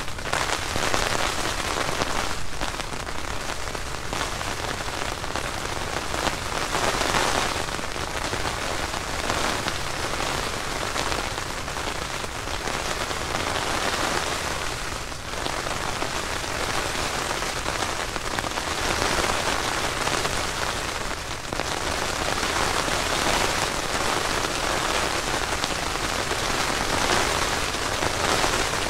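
Rain falling on a nylon tent rain fly, heard from inside the sealed tent, the downpour swelling and easing every few seconds.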